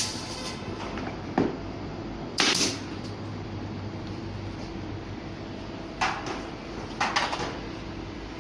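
A handful of sharp, irregularly spaced clunks and knocks over a steady low hum: workpiece material being handled and fixed down on a CNC router bed.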